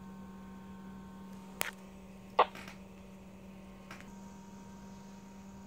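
A steady electrical mains hum from the test bench, with three short clicks and knocks from handling, about one and a half, two and a half and four seconds in; the middle one is the loudest.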